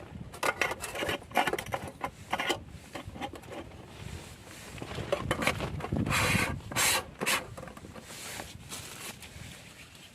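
Irregular rubbing and scraping noises: a run of short scrapes, with a longer, louder stretch about six to seven seconds in.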